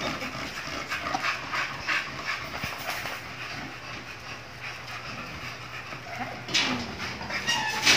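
American Bully stud dog panting during manual semen collection, with a brief louder call about six and a half seconds in.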